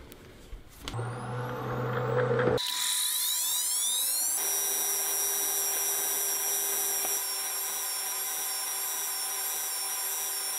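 Surface grinder's wheel spinning up with a rising whine, then running at speed with a steady high whine while it skims the top face of a magnetic chuck. A few clicks near the start as the chuck's lever is switched, and a low hum about a second in.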